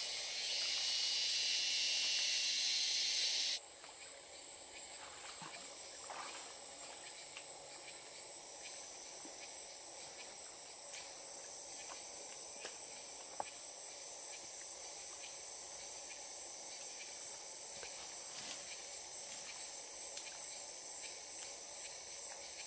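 Forest insects droning: a steady high-pitched whine, with a louder hissing chorus over the first few seconds that cuts off suddenly.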